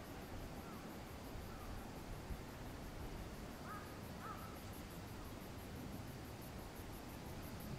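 Crows cawing a few times, two clearer caws about four seconds in, over a steady low outdoor rumble.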